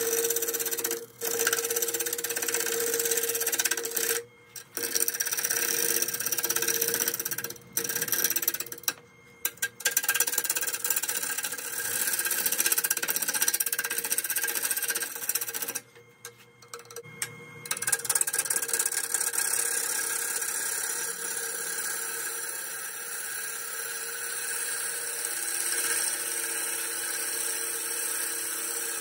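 Wood lathe spinning an ash bowl blank at about 545 rpm while a 5/8-inch bowl gouge rough-turns it round: a steady motor tone under the hissing scrape of the cut. The cutting noise breaks off briefly several times in the first half, then runs on evenly.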